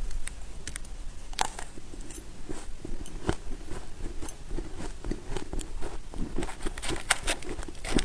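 Close-up bites and chewing of powdery freezer frost: irregular soft, crisp crunches. Near the end, a metal spoon scrapes and scoops into the frost.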